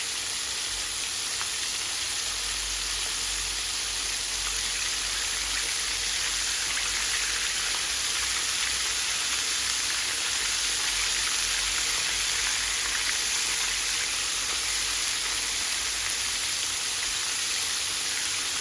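Floured chicken pieces deep-frying in hot grease: a steady crackling sizzle.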